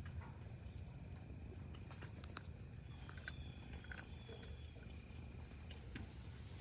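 Faint, steady high-pitched chirring of crickets or other summer insects, with a low rumble underneath and a few soft scattered clicks.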